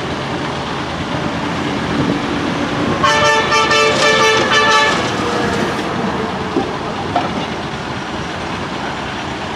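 Road traffic running past, with a vehicle horn sounding for about two seconds, starting about three seconds in.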